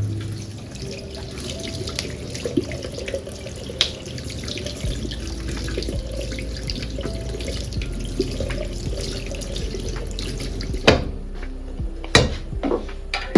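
Water running and splashing steadily, with a few sharp knocks near the end.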